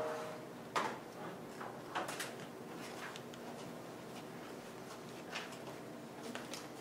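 Quiet classroom room tone with faint, scattered small taps and rustles from students writing and shifting at their tables.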